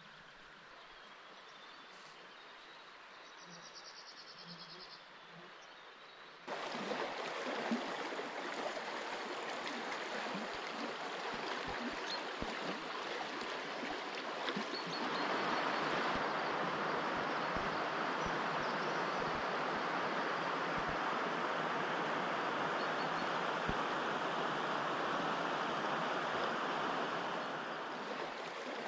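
Steady rush of a shallow, stony river flowing over rocks, cutting in suddenly about six seconds in and getting a little louder about halfway through. Before that there is only a faint outdoor quiet with a few small high chirps.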